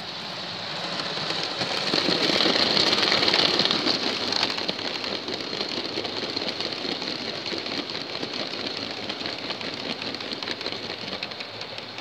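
Electric model train running on its track, with the motor and wheels rolling on the rails of the Rivarossi 2-6-6-6 locomotive and its wagons. The sound grows louder as the train passes close at about two to four seconds in, then carries on as a steady rolling rumble.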